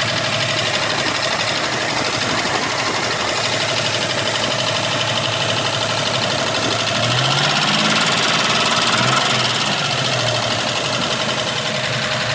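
1993 Toyota 4Runner's 3.0-litre V6 (3VZ-E) running with a steady, rapid ticking from the top end. The revs rise briefly about seven seconds in and settle back near ten. The owner wonders whether the tick means the valve lash needs adjusting or the engine is going bad.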